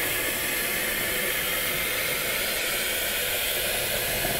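Kitchen mixer tap running steadily, its stream filling a plastic jug with tap water as an even hiss.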